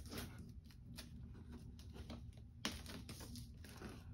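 Fingers picking and scratching at the flap of a stapled cardboard box, giving scattered small clicks and scrapes, with one sharper click a little past halfway.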